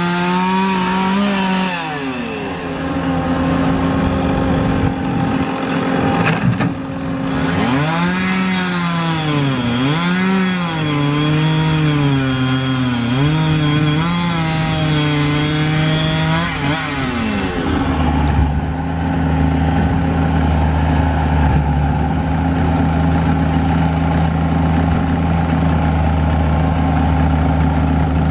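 Skid-steer loader's diesel engine working, its pitch dipping and recovering again and again as the machine is loaded. From about two-thirds of the way through it settles into a steady, deeper running note.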